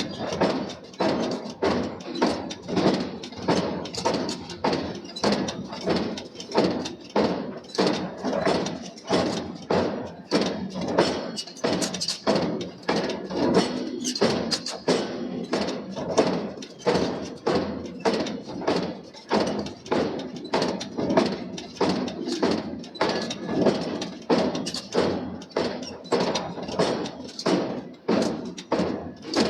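Forging hammer striking steel in a steady, even rhythm, somewhat under two blows a second.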